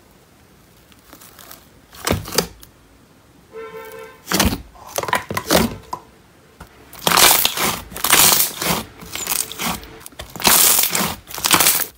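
Bubbly white slime in a plastic tub being poked, stretched and pressed flat by hand, crackling and popping in bursts, loudest in the second half.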